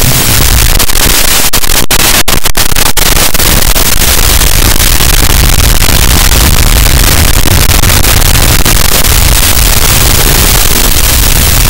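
Loud, steady static hiss from an analog FPV video receiver's audio channel, with a few brief dropouts about two to three seconds in.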